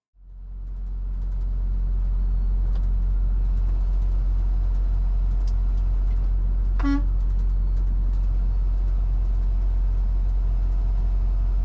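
Steady low drone of a semi truck's engine and road noise heard from inside the cab while driving, fading in at the start. About seven seconds in, one short horn toot, a warning to a driver starting to pull out.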